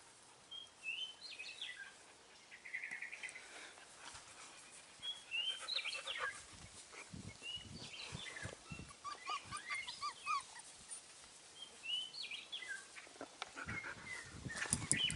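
Faint, high-pitched squeaks and whines from four-week-old Texas Heeler puppies, with a quick run of short squeaks about two-thirds of the way through.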